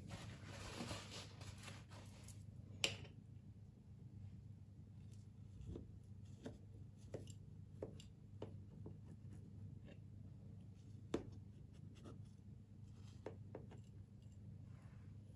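Knife cutting through a tiramisu in a baking tray: soft scraping through the crumb topping and cream at first, then scattered light clicks and taps of the blade against the tray, with a sharp click about three seconds in and another about eleven seconds in. A low steady hum sits underneath.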